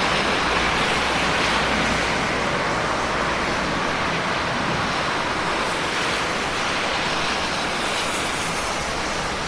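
Steady, even rain with no thunder, a continuous hiss of falling water.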